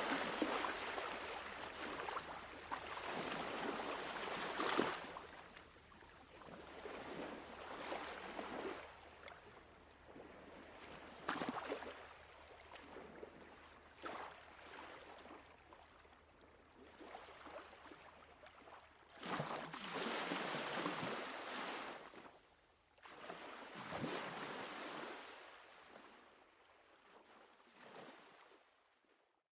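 Ocean waves washing in swells, rising and ebbing every few seconds, then fading out near the end.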